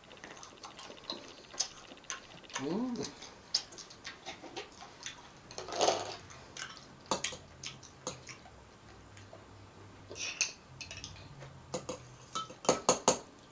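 Scattered light clicks and taps of food containers and packaging being handled on a table, with a quick run of louder clicks near the end.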